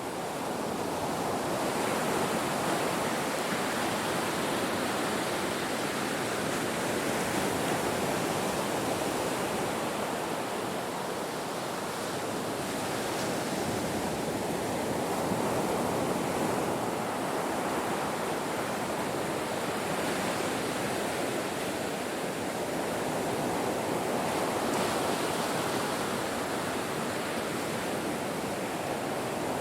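Ocean surf: waves breaking and washing onto a shore as a continuous rush of water, swelling and easing in loudness every several seconds.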